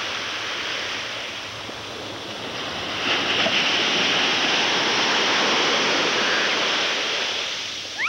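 Small ocean surf washing at the shoreline, a steady hiss of water that swells louder about three seconds in and eases off near the end.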